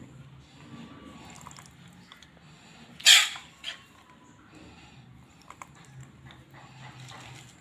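Cooked chana masala being spooned into a serving bowl: faint clinks and scrapes of the ladle, with one loud, short, sharp sound about three seconds in and a weaker one just after.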